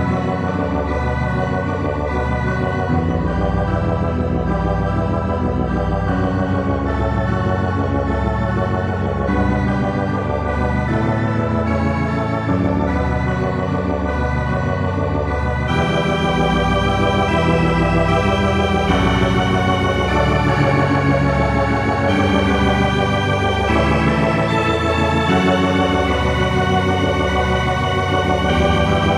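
Dungeon synth music: sustained keyboard-synth chords in an organ tone over a deep bass line, the sound growing brighter a little past halfway.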